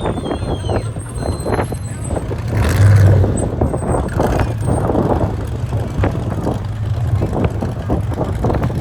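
Off-road race vehicle engine running loud and low as it passes, loudest about three seconds in.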